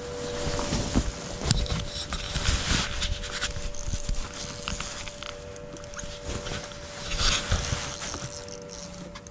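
Steady electric hum of the boat's bow trolling motor moving the boat along, under gusts of wind rush and scattered knocks and scuffs on the deck.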